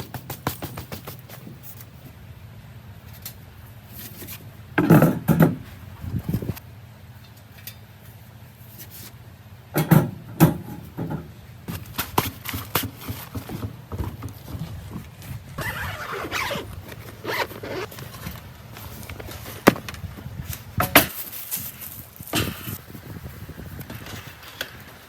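Irregular knocks, clatters and scrapes of objects being handled, with louder clusters every few seconds, over a faint low hum that stops near the end.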